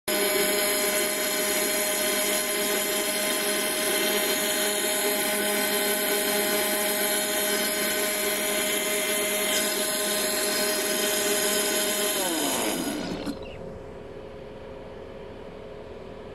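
Electric mixer grinder running steadily, blending mango, curd and water into lassi. About twelve seconds in it is switched off and the motor winds down with a falling whine, leaving a quieter steady background.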